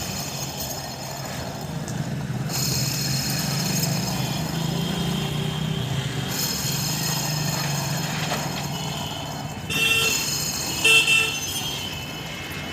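The removed AC compressor of a Maruti Swift VDI, its pulley spun by hand, giving a rough grinding whir from the pulley bearing, whose grease has dried out. Near the end come two short, louder pitched tones like a horn.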